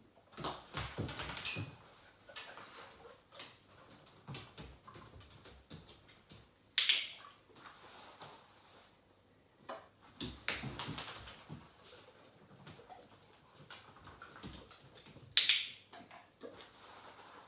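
German Shorthaired Pointer chewing and licking food treats in short, soft bouts, with two sharp clicks about eight and a half seconds apart.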